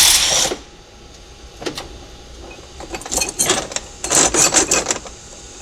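A short loud hiss at the start, then scattered metallic clinks and clatter as steel gears and parts of a G56 transmission main shaft are handled. The clinks bunch together about three seconds in and again near the end.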